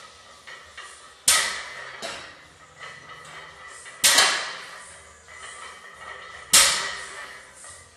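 Loaded barbell with weight plates set down on the floor between deadlift reps: three sharp clanking impacts about two and a half seconds apart, each ringing briefly, with lighter knocks in between.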